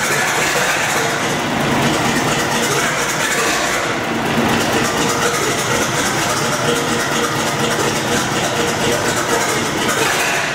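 Gardner 6L3 six-cylinder diesel engine running steadily on a test stand.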